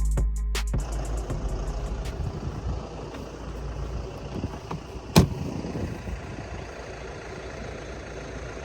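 Tractor engine idling steadily, with one sharp click about five seconds in. Background music cuts out in the first second.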